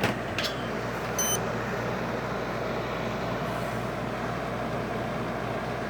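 Air conditioner running steadily, a constant whoosh of fan and compressor noise with a low hum. A couple of clicks at the start and a short electronic beep about a second in.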